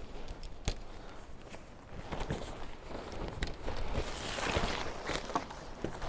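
Footsteps with irregular clicks, knocks and rustling, the rustle swelling about two-thirds of the way through.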